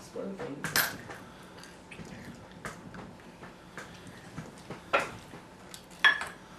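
Light clinks and rattles of a metal muffin tin and the chips in it being handled, with a few sharp clicks: one about a second in and two more around five and six seconds.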